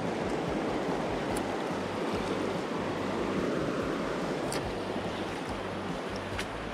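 River water rushing steadily, with a few faint clicks.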